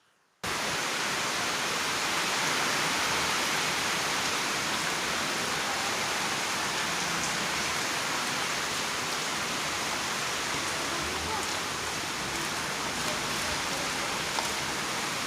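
Heavy rain falling, a steady hiss that cuts in suddenly about half a second in.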